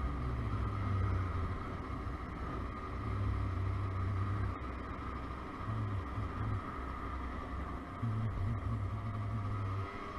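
A partly derestricted Motobi BS1 50 cc scooter's engine running at a steady cruise, with a low rumble that comes and goes several times.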